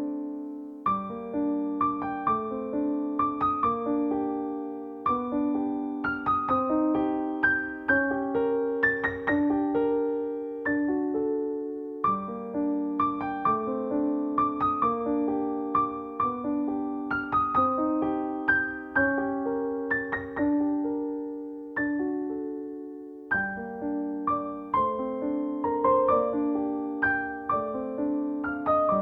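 Background piano music: a gentle melody of struck notes over repeating broken chords.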